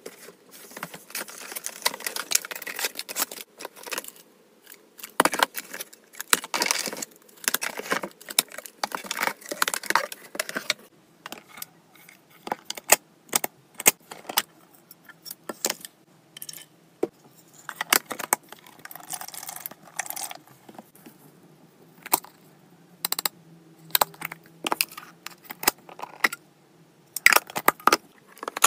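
Hands unpacking and handling clear plastic storage containers with push-button lids. There is rustling and crinkling for the first ten seconds or so, then many sharp plastic clicks and taps as the containers are handled and set down.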